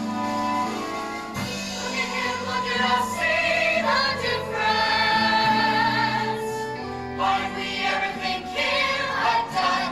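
Music: a group of voices singing a stage-musical song over instrumental accompaniment, the voices coming in about a second and a half in.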